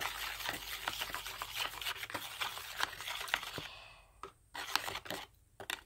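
Soapy foam of hand soap, cocoa and hand sanitizer fizzing and crackling as its bubbles pop while it is stirred, a dense stream of fine ticks that thins out about four seconds in with two brief breaks.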